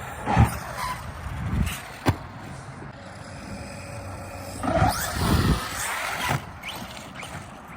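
ARRMA Outcast 4S electric RC truck driving on rocky ground. Its brushless motor whines and rises in pitch as it speeds up, with thuds and a sharp knock as the truck lands and bounces.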